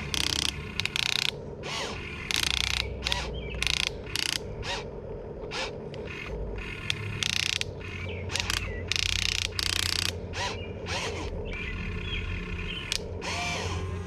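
Small electric gear motors of a Huina 1593 RC excavator whirring in many short bursts, stopping and starting as the boom, arm and bucket dig and the cab swings. A steady low hum runs underneath.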